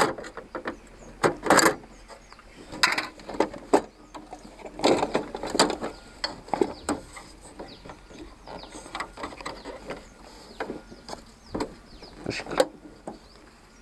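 Plastic and metal parts of a hand-push token seed planter clicking, knocking and rattling at irregular moments as they are handled and fitted together.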